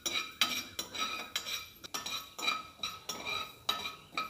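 A metal spoon stirring fenugreek seeds in a dry aluminium kadai, scraping and striking the pan about three times a second. Each stroke leaves a brief metallic ring. The seeds are being dry-roasted without oil.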